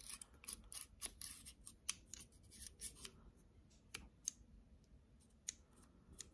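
Faint, irregular small metallic clicks from a Heritage Rough Rider single-action .22 revolver as its ejector rod is worked and the cylinder is turned by hand with the loading gate open.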